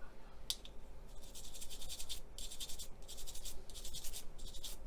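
Quick runs of light scratching strokes as a small hand tool scrubs paint off a plastic scale-model part, chipping back acrylic paint laid over chipping fluid.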